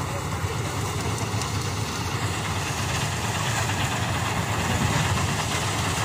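Combine harvester (a Gurdial 651) running steadily as it cuts soybeans, a continuous engine and machinery drone that grows slightly louder as the machine comes closer.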